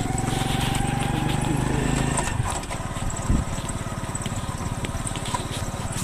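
A motor engine running steadily with an even firing pulse, louder for the first two seconds and then dropping back.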